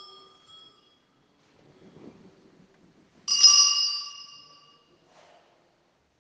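Altar bell struck once a little over three seconds in, ringing and fading over about a second and a half, with the tail of an earlier ring dying away at the start. It is the bell rung at the elevation of the chalice during the consecration at Mass.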